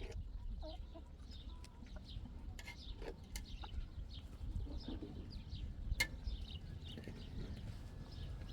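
Fowl calling: many short, high chirps scattered throughout, over a low rumble, with a sharp click about six seconds in.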